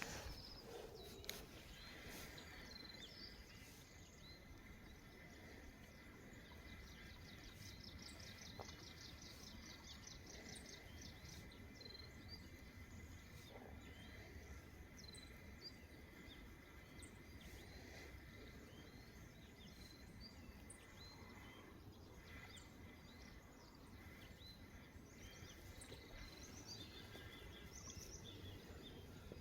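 Faint outdoor ambience: birds chirp and trill here and there over a steady thin high-pitched drone and a low rumble. Two sharp clicks come about a second apart near the start.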